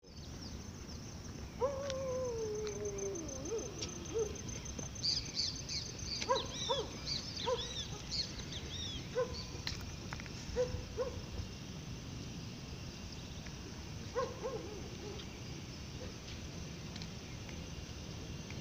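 Animal calls: one long falling call about two seconds in, then a string of short arched calls. Higher small-bird chirps come in between about five and eight seconds, all over a steady low background noise.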